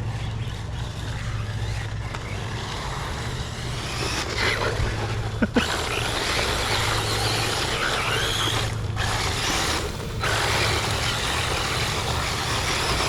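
Arrma Typhon TLR Tuned RC buggy running on a loose-gravel track, its electric motor whining up and down with the throttle over the noise of tyres on gravel, with a couple of brief drops near the end.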